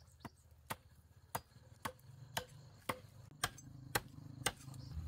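Machete blade chopping at the base of a bamboo post: nine sharp, evenly spaced strikes, about two a second.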